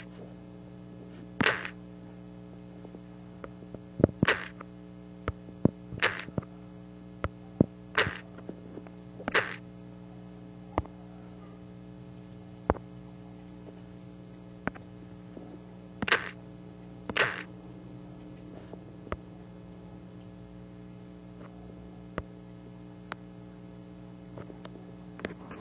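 Steady electrical hum with irregular short knocks and clicks from a handheld phone being tapped and handled, about seven louder ones and many faint ticks.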